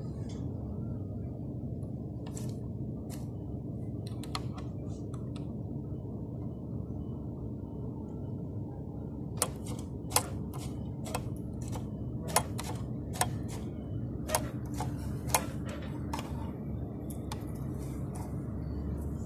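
Steady low machine hum with sharp clicks, a few faint ones early and a string of louder ones in the middle, as the pintuck attachment on an overlock sewing machine is handled.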